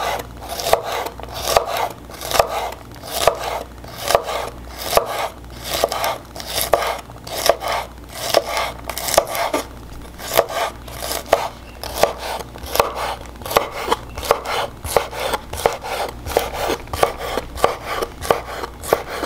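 Kitchen knife chopping fresh green beans into short pieces on a wooden cutting board: a steady rhythm of crisp cuts with the blade knocking the board, two to three strokes a second.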